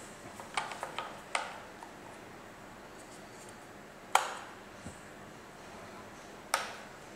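The plastic buttons on the handle of a Philips GC1905 steam iron being pressed: a few light clicks in the first second and a half, then two sharper, louder clicks about two and a half seconds apart.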